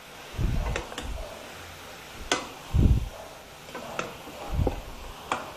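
Wooden spatula stirring and tossing peas and broccoli in a stainless steel frying pan: scattered sharp clicks of wood against the pan, with three dull thumps.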